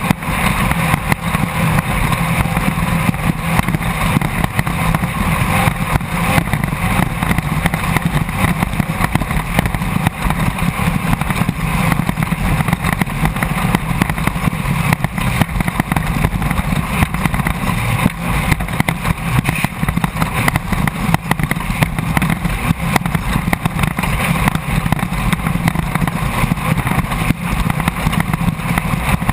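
Air-cooled Volkswagen flat-four of a Class 1600 off-road race buggy running hard at speed, heard from inside the car. It is a loud, steady din throughout, with many small knocks and rattles.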